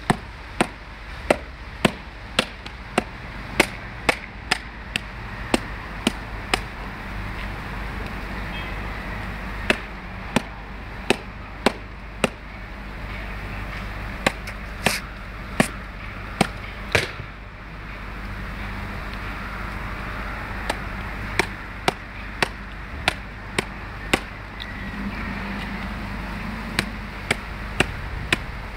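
Machete blade chopping into a coconut's husk held in the hand: quick sharp chops at about two a second, in runs of several seconds broken by short pauses.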